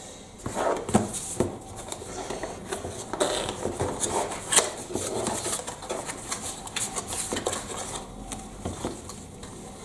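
Hands handling microphone accessories and packaging: rubbing and rustling with many small clicks and knocks.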